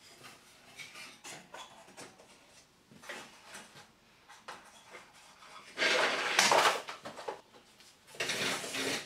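Aluminium rip fence of a table saw being handled and slid over the metal saw table: light knocks and clicks, then two louder scraping slides, about six and about eight seconds in.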